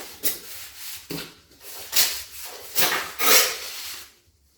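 Freshly grouted floor tiles being scrubbed by hand to wash off the grout residue, in several rubbing strokes about a second apart, cutting off abruptly near the end.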